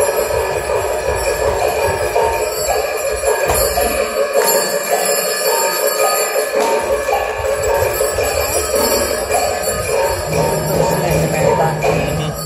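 Chinese lion dance music: fast, continuous jingling metallic percussion over a drum beat. The drum drops out for a couple of seconds about halfway.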